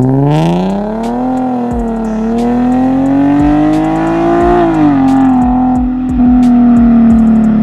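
Nissan 370Z's V6 through a loud aftermarket exhaust, accelerating hard in a drive-by: the engine note climbs through the revs, dips briefly at a shift, climbs again, then drops sharply at an upshift about two-thirds of the way in and holds as the car pulls away.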